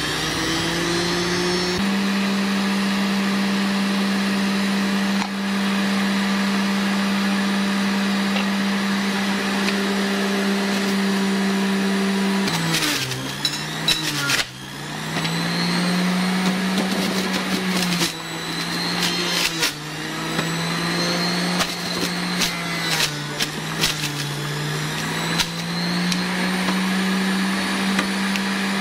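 Electric juicer motor running with a steady hum. About halfway through, its pitch repeatedly sags and recovers, with scattered clicks and knocks, as pieces of carrot, apple, beetroot and celery are pushed through it.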